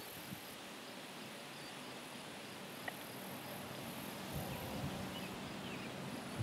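Faint insects chirping in a regular pulse over a low, distant rumble from the departing freight train, which swells slightly in the second half.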